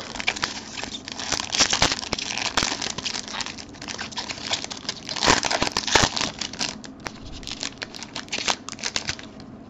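Foil wrapper of a 2019 Topps Tier One baseball card pack being crinkled and torn open by hand: a dense run of sharp crackles and rustling, with louder bursts now and then.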